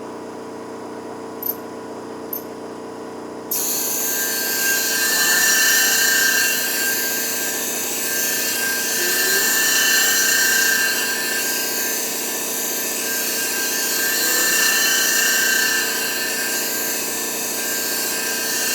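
Clipper-blade sharpening machine running with a steady hum and two light clicks. About three and a half seconds in, the clipper blade meets the spinning abrasive hone plate. A loud grinding hiss with a steady high whine begins and runs until just before the end.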